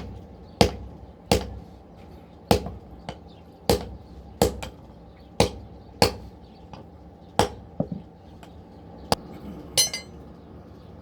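Blacksmith's hammer striking metal on an anvil while forging a nail: uneven blows, roughly one to two a second, each with a sharp metallic ring and some lighter taps between. Near the end comes a brief high rattling clink.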